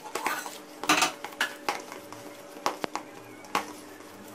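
Hands mixing raw chicken mince with onion and spices in a plastic bowl: irregular scrapes and knocks of the hands and mince against the bowl.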